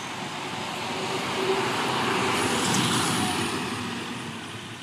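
Recorded street ambience of traffic, with a passing vehicle whose noise swells to a peak about halfway and then fades away.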